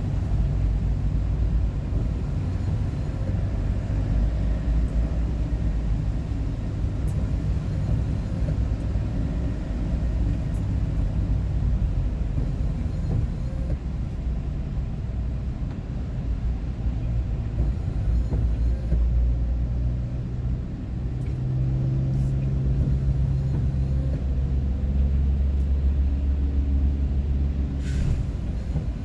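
Steady low rumble of a vehicle's engine and road noise, heard from inside the cab while driving at speed. The engine's low hum grows stronger in the last third.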